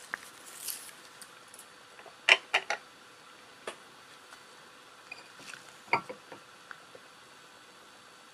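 Light clicks and knocks from a white ceramic plate handled with gloved hands, over a faint steady hiss. The loudest is a quick run of three sharp clicks a little over two seconds in, with a smaller cluster about six seconds in.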